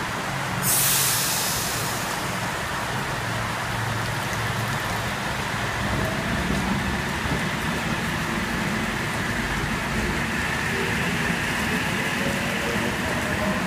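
Double-deck Oscar H-set electric train pulling out of the station in heavy rain, over a steady hiss of rain. About a second in comes a short burst of hissing air, and from about halfway the motors' whine rises slowly in pitch as the train gathers speed.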